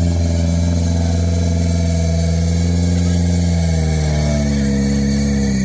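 Lada Niva's engine held at high revs under heavy load as the off-roader churns through deep mud and water; the note sags slightly near the end.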